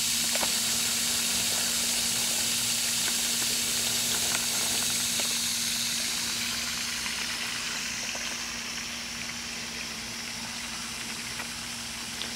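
Steady high-pitched outdoor hiss with a low steady hum underneath, easing off a little past the middle.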